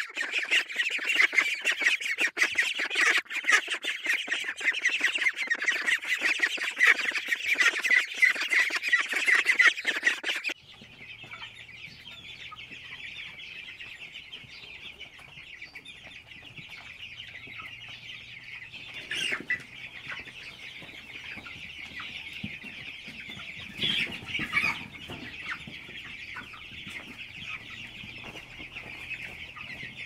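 A large flock of ducklings peeping loudly and densely. About ten seconds in it switches to a group of young chickens peeping more quietly and steadily over a low hum, with a few louder calls near the end.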